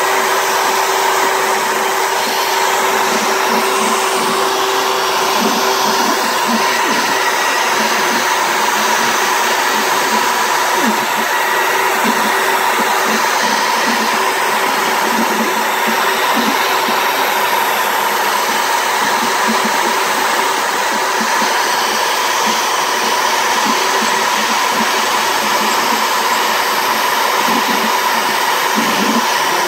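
CNC router spindle running with a steady whine while its bit cuts an outline into a wooden plaque.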